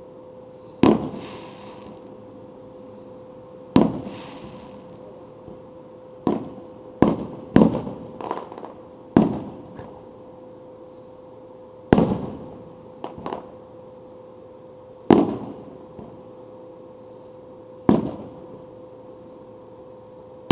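Aerial fireworks shells going off: about a dozen sharp booms, each trailing off in an echoing rumble. Several come in quick succession a few seconds in, and the rest are spaced a few seconds apart.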